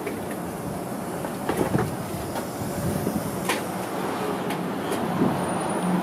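Toden Arakawa Line streetcar running on the line close by: a steady low hum and noise with a few sharp clicks.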